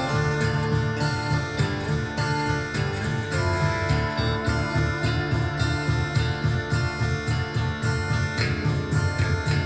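Guitar music with a rhythmic bass line played back through a pair of Denon SC-R55 three-way speakers driven by a Sansui AU-α607i amplifier.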